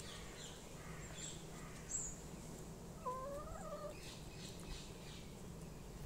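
Black hen pecking at a ripe fig through chicken wire: a run of soft, quick taps, with one short wavering animal call about halfway through.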